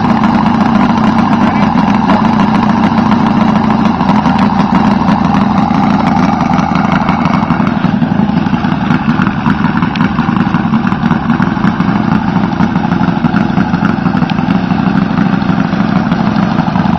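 Robart R780 seven-cylinder radial model aircraft engine idling steadily on a large RC scale airplane.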